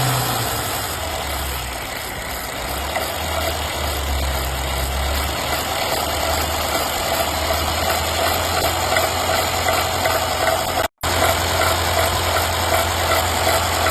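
Mercedes-Benz M276/M278 petrol engine running near idle with a faint, even mechanical ticking, the abnormal noise under diagnosis. The engine speed drops back about half a second in, wavers for a few seconds, then holds steady.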